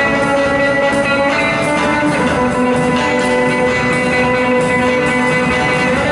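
Instrumental passage of a guitar-led song, no singing: guitars hold long sustained notes over a full, steady band backing.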